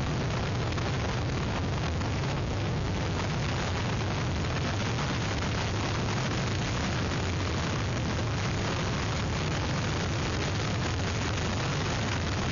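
Hurricane wind buffeting an outdoor webcam's microphone: a steady, heavy rush with a deep rumble underneath that does not let up.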